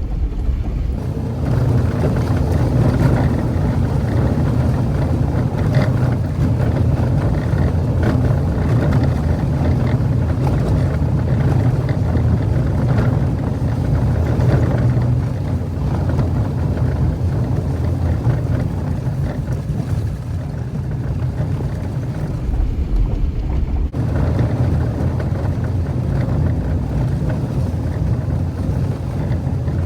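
Jeep driving up a dirt trail: a steady low drone of engine and tyres on the dirt road.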